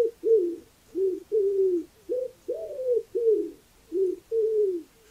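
An animal calling over and over: about ten short calls in quick succession, each sliding slightly down in pitch.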